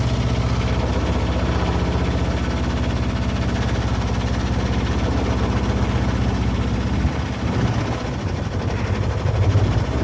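Boat engine running steadily with a low, even hum. About seven seconds in, the lowest tone drops away and the sound turns rougher for a couple of seconds, then comes back stronger near the end.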